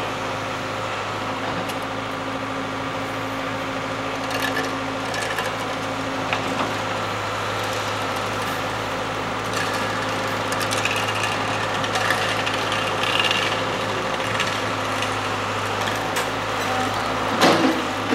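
Steady hum of idling construction machinery, with scattered knocks and clicks of work and a louder clatter near the end.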